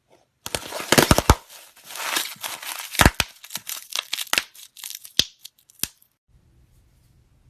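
Slime being squeezed and poked so that its air bubbles pop, a run of crackles and sharp pops that stops about six seconds in.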